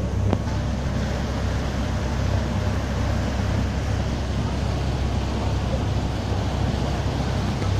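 A boat's engine running steadily with a low hum, under the rushing of water churned up in its wake.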